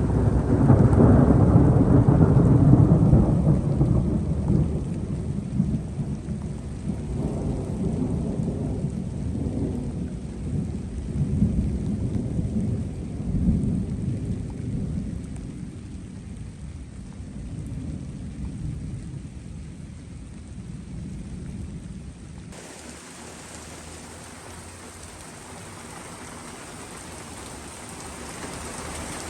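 Thunder rumbling over steady rain: a loud low roll in the first few seconds, fading away in smaller swells. About 22 seconds in the sound cuts abruptly to rain hissing steadily on its own.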